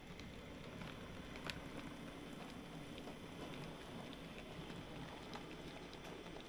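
N-scale model train running on the track: a faint steady rolling noise with scattered small clicks of the wheels and one sharper click about one and a half seconds in.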